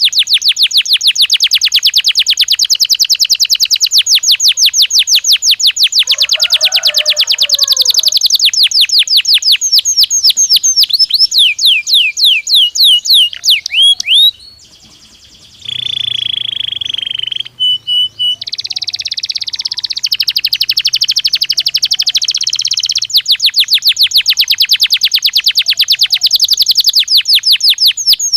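Domestic canary singing a long song: fast rolling trills of rapidly repeated high notes that slow into separate gliding notes. After a short break comes a held whistled note, then a buzzy passage, and the fast trills start again.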